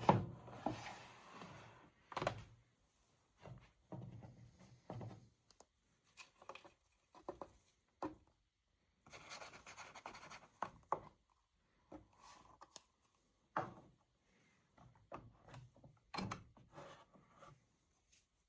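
Irregular handling sounds around a washing machine: short knocks and thunks with rubbing and rustling between them.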